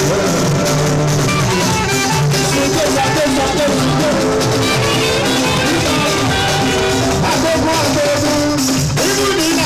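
A live fuji band playing loudly through a PA, with drums, bass guitar and saxophone, and a voice singing over it.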